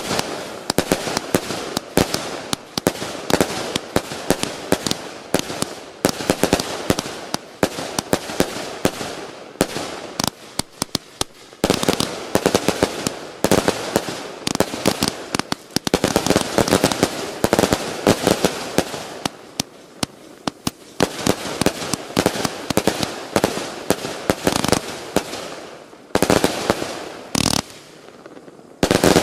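Sky Vandal 404-shot 20 mm F3 compound firework firing in rapid succession: a dense stream of tube launches and small shell bursts with crackling strobe, many reports a second. It thins to a few separate reports near the end.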